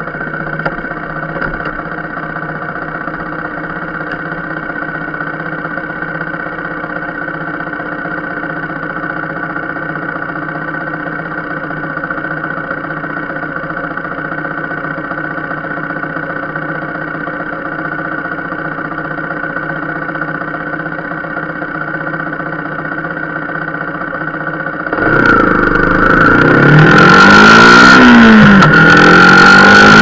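Motorcycle engine idling steadily at a standstill, then after about 25 seconds it revs and pulls away, its pitch rising and falling through the gear changes with a rush of wind noise as speed builds.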